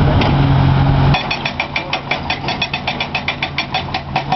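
Komatsu PC300LC-8 excavator with a hydraulic rock breaker. The engine runs steadily at first, then about a second in the breaker starts hammering rock in a fast, even rhythm of about eight blows a second.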